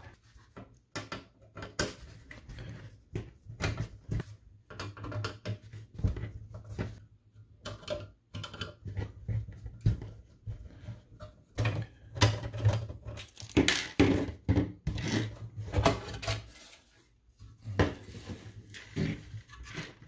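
Screwdriver clicking and scraping on the screws of a DVR's sheet-metal case, with irregular metal clicks, knocks and scrapes as the screws are backed out and the top cover is worked loose; the handling is busiest a little past the middle.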